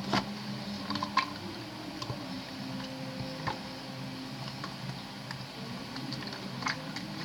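Bamboo chopsticks stirring thickening slime (glue mixed with borax solution) in a container: wet squishing with scattered light clicks of the chopsticks against the container, as the slime firms up and stops sticking to the jar.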